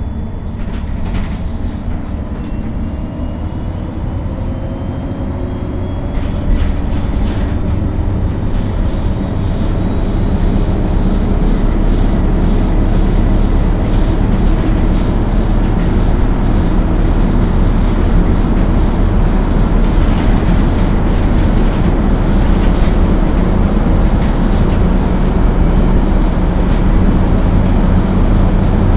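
MAN NL 263 low-floor city bus at motorway speed: its diesel engine and drivetrain speed up over the first several seconds with a rising whine, then settle into a steady, loud drone with road noise.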